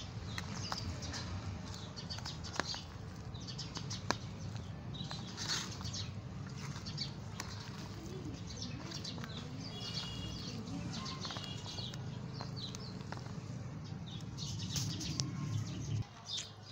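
A hand squeezing and turning wet pakora batter of chopped potato, onion and gram flour in a steel bowl, making squelching and rustling sounds with a few sharp clicks. A steady low rumble lies underneath and stops near the end.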